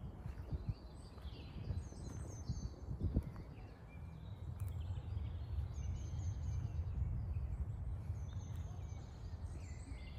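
Several small birds chirping and singing in spring woodland, short high calls scattered throughout, over a steady low rumble.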